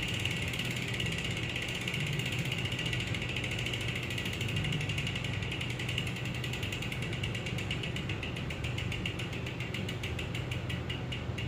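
Bicycle road wheel's freehub pawls ticking rapidly as the spun wheel coasts, with the clicks slowing and spacing out toward the end as the wheel winds down.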